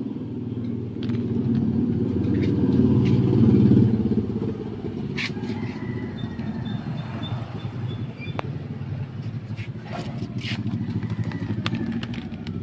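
A motor vehicle engine running with a steady low rumble, swelling to its loudest about three to four seconds in and then easing off, with scattered light clicks and knocks.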